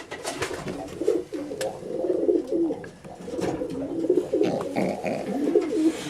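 Racing pigeons cooing continuously, low warbling coos overlapping one another, with a few short sharp taps among them.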